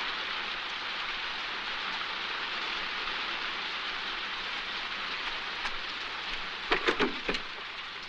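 Heavy rain pouring down steadily. Near the end comes a quick cluster of several loud thumps.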